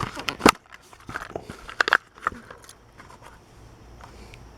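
Plastic blister pack of a Hot Wheels toy being pried and cracked open: sharp snaps of plastic, the loudest about half a second and two seconds in, with crinkling and crackling between them, fading to quieter handling.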